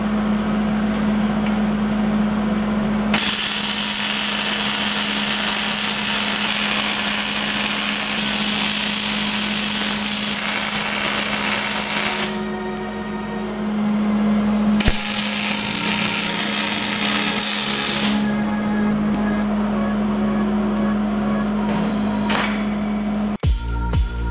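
MIG welding arc crackling and sputtering as beads are laid on a steel axle truss, in two long runs of about nine seconds and three seconds, with quieter stretches between them. A steady low tone sits underneath.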